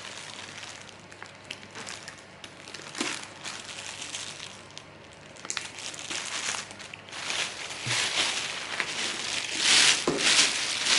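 Crinkling and rustling of a handbag and its packaging being handled, with scattered small clicks, louder in the last few seconds.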